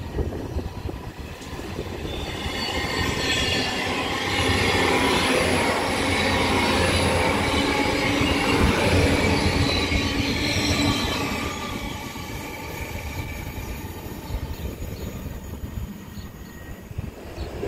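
Hitachi bi-mode InterCity Express train passing close by on its underfloor diesel engines. The rumble of wheels and engines builds over a couple of seconds and is loudest for several seconds as the carriages go by, with several high whining tones from the wheels on the rails. It then fades as the train moves away.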